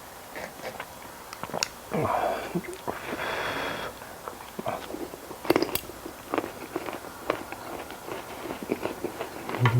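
A person chewing and crunching a mouthful of lettuce-wrapped grilled pork belly close to the microphone, with scattered wet smacks and clicks.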